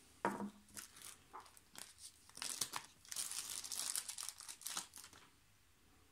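A sharp knock about a quarter second in, then plastic bubble-wrap packaging crinkling and rustling in irregular handfuls for about three seconds as it is pulled open from around a metal miniature.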